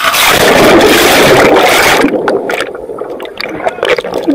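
Water rushing and splashing right over an action camera's microphone, starting suddenly and loudest for about two seconds. It then breaks up into patchier splashing with a few knocks.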